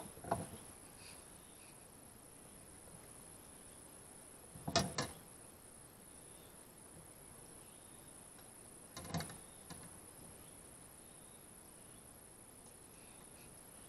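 Steady high-pitched drone of insects, with a few short knocks and rustles about five and nine seconds in as a caught river prawn is handled and unhooked.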